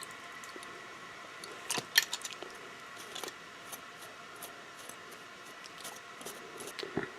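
Light scattered clicks and clinks of small metal bicycle drivetrain parts, such as the chain and derailleurs, being handled after a rinse, with a few louder clinks about two seconds in and near the end.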